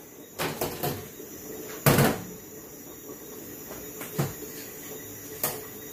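A few knocks and clunks of kitchenware being moved on a metal counter. The loudest, about two seconds in, is a glass bowl of avocado halves being set down.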